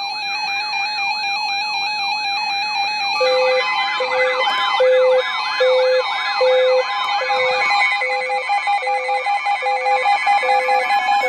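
Several emergency alert tones sounding at once: a fast up-and-down warbling siren tone over steady alert tones. About three seconds in, a pulsing beep joins, a little more than once a second. Together they announce an incoming severe thunderstorm warning.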